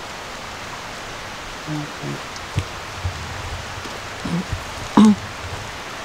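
Steady outdoor hiss with a few short sharp knocks and brief low vocal sounds from a person; the loudest vocal sound comes about five seconds in.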